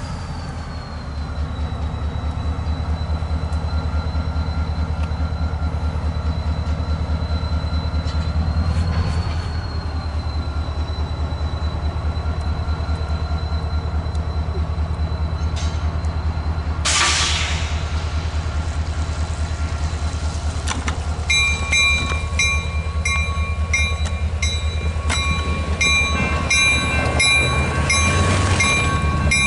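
Diesel-electric freight locomotives running at low speed as the train approaches a grade crossing, with a steady low engine drone. About two-thirds of the way in, the crossing bell starts ringing in evenly repeated strokes.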